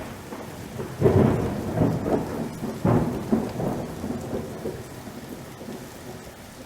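Rolling rumbles of thunder over a steady hiss of rain, loudest about a second in and again about three seconds in, then fading away.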